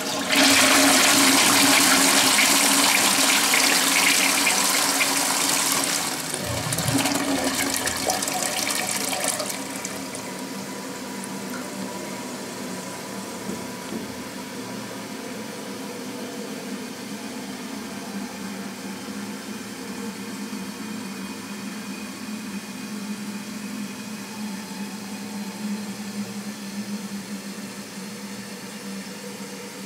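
A toilet flushing: a loud rush of water that stays strong for about nine seconds, dipping briefly around six seconds in. It then settles into a quieter, steady run of water with a faint steady tone as the cistern refills.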